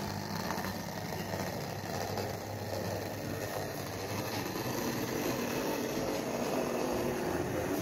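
Model railway locomotive pulling wagons along the layout track: a steady low hum of the running train.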